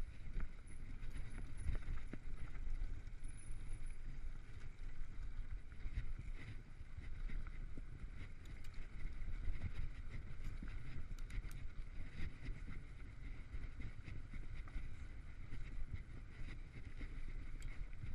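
Mountain bike riding over a rough dirt singletrack, heard from a camera on the rider: a steady rumble of wind and tyres, with scattered clicks and rattles as the bike jolts over the ground.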